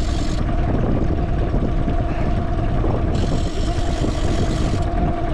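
Boat engine running steadily at low trolling speed, a constant low drone with a steady hum.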